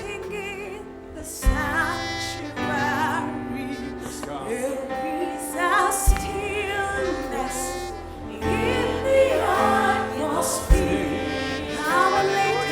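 Church worship music under prayer: sustained keyboard chords and low bass notes with voices singing with vibrato, and a few soft low thumps.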